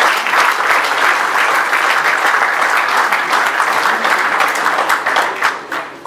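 Audience applauding, a dense steady clapping that thins out and fades near the end.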